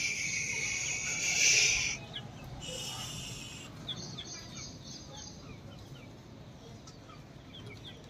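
Chickens in a yard: a loud, shrill call lasting about two seconds and a shorter one soon after, then faint short high peeps and chirps scattered throughout.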